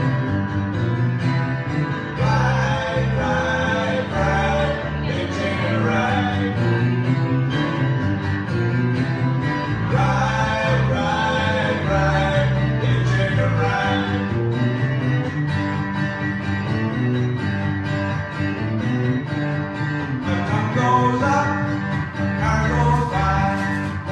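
Live guitar-led music playing steadily, with a rhythmic bass line under it.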